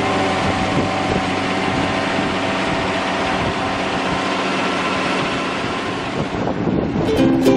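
An engine running steadily with an even hum, typical of working farm machinery. Plucked ukulele music starts near the end.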